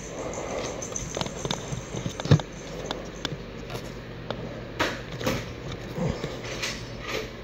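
Faint rustling and scattered light knocks from someone moving quietly while handling a camera and toy blaster, with one sharper knock about two seconds in.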